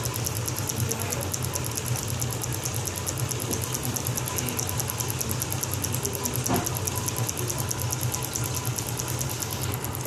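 Homemade pulse motor built from a microwave oven transformer running steadily: its magnet rotor spins while the coil is switched, giving a fast, even clicking over a low hum.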